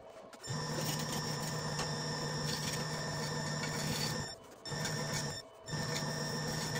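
Wood lathe running with a steady hum as a turning tool cuts the spinning 30 lb burl-and-resin blank. The sound breaks off sharply and resumes three times.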